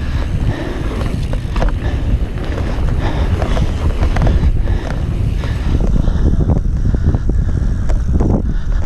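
Mountain bike rolling fast down a dirt trail: wind buffeting the bike-mounted camera's microphone, tyres running over packed dirt, and frequent clicks and rattles from the bike over bumps.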